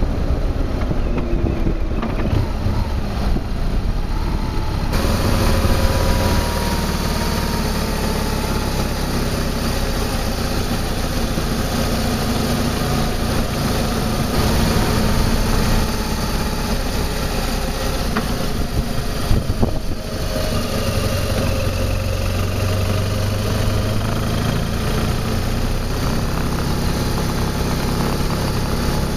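BMW R1200 GS flat-twin engine running under way, mixed with steady wind and road noise on the bike-mounted camera's microphone. The sound shifts about five seconds in and again near twenty seconds.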